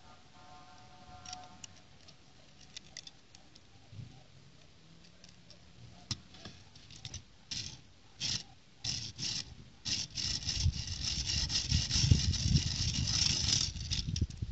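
Small plastic building-brick toy vehicle being handled: scattered light clicks and taps of plastic pieces, becoming a denser run of clicking after about six seconds, then continuous scraping and rubbing that is loudest in the last few seconds.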